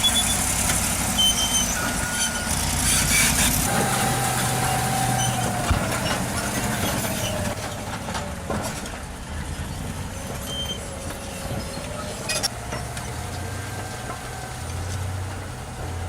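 Large crawler bulldozer's diesel engine running steadily under load, with wavering metallic squeals and scattered clanks over it.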